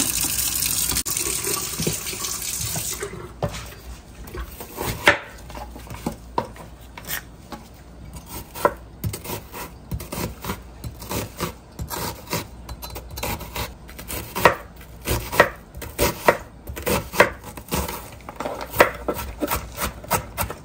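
Kitchen tap running water over a peeled onion in a stainless steel sink for about three seconds, then a knife slicing and chopping onion on a wooden cutting board, the knife strikes coming quicker towards the end.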